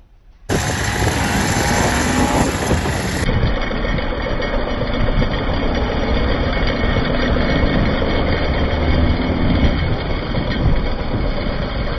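Motorcycle on the move at speed: a steady rush of wind noise on the microphone with the engine running underneath. It starts suddenly about half a second in.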